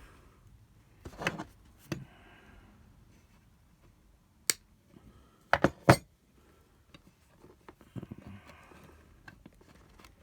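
Side cutters and plastic being worked as an old rubber strain-relief grommet is pulled off a power-supply cable: several sharp clicks and snaps, the loudest three close together about five to six seconds in, with short scraping sounds between them.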